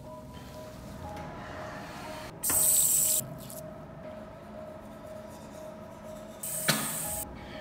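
A sink tap running in two short bursts of hissing water, each under a second and starting and stopping abruptly, over background music of steady held notes.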